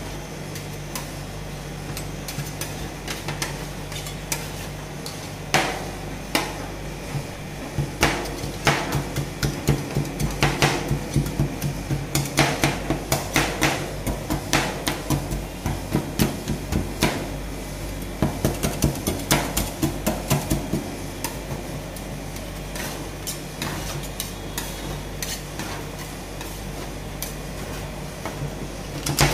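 Two metal ice-cream scrapers chopping and scraping on a stainless-steel rolled-ice-cream cold plate as chocolate wafer bar is chopped into the freezing cream base. The rapid clacking strokes begin about five seconds in, come thickest through the middle and thin out later, over a steady low hum.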